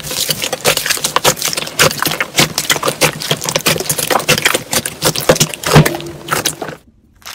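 Hands kneading and squeezing slime in a glass bowl, making a dense run of wet clicks and pops that stops abruptly near the end.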